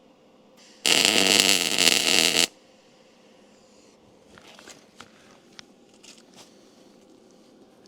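Arc welder laying a single tack weld on a steel truck frame, about a second and a half long, starting about a second in. A few faint clicks and scrapes of metal follow.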